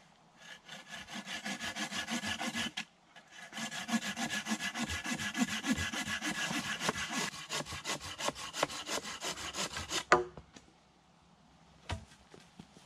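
Hand saw cutting through a wooden pole in fast, even back-and-forth strokes, with a brief pause near the start. The strokes stop with a sharp knock about ten seconds in, and there is one more knock near the end.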